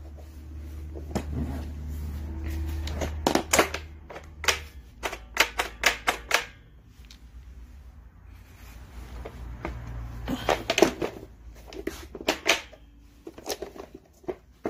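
Clicks and clacks of a Stanley folding platform hand truck's plastic deck and metal handle being handled and folded, coming as scattered clusters of sharp knocks.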